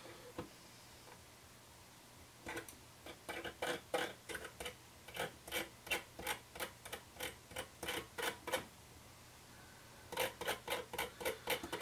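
Ceramic tweezers clicking and rubbing against the glowing coil wraps of a rebuildable dripping atomizer as hot spots are pinched out, in quick runs of ticks, about two or three a second. The ticks stop for about a second and a half past the middle, then start again.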